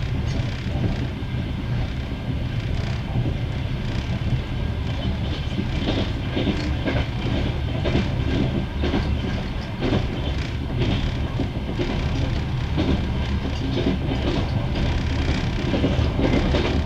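Passenger train wheels clattering over the rail joints, heard from inside a moving carriage: a steady low rumble with irregular clicks and knocks.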